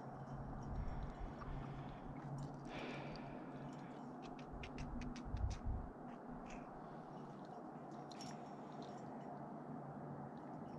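Faint rope and gear handling while belaying: scraping and rustling, with a quick run of light clicks, like carabiners and hardware knocking together, about four to six seconds in, and a few low bumps against the camera.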